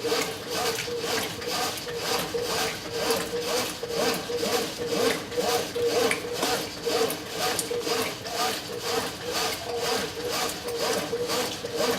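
Brastemp 9 kg washing machine agitating a load in deep water, swishing the laundry back and forth in a fast, even rhythm over a steady hum.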